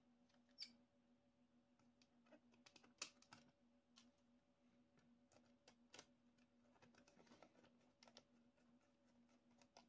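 Near silence with faint, scattered light clicks of small screws and acrylic panels being handled and a screw being driven by hand with a small screwdriver, over a faint steady hum.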